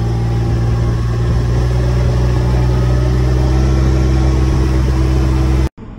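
Engine of a side-by-side utility vehicle running steadily while it drives. It cuts off abruptly near the end.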